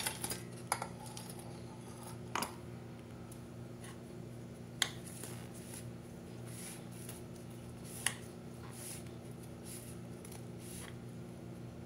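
Metal spoon scraping and tapping inside a stainless steel tin while a crumb base of Oreo crumbs and ghee is pressed down. Sharp clinks come about two and a half, five and eight seconds in. Softer scrapes fall between them, over a low steady hum.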